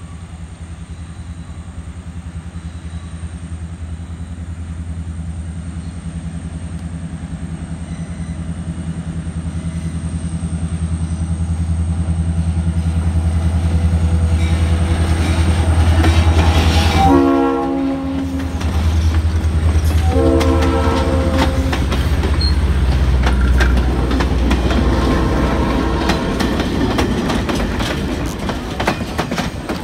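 Diesel locomotive's engine drone growing louder as it approaches, then two blasts of its horn, a short one about 17 seconds in and a longer one a few seconds later. After that, passenger cars roll by with a rhythmic clickety-clack of wheels over the rail joints.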